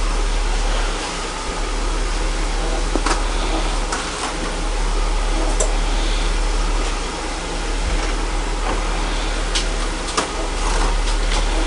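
French fries deep-frying in hot oil: a steady sizzling hiss with scattered crackles and pops, over a low hum.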